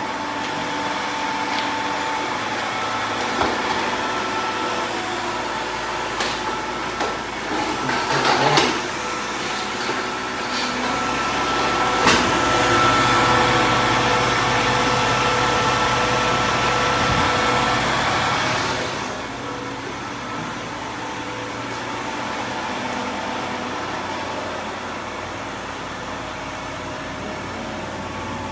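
A delivery truck's engine and loader crane hydraulics running as a bulk bag of stone is lifted off, a steady mechanical whine with a few clanks and knocks. About two-thirds through, the whine drops away and the engine runs on more quietly.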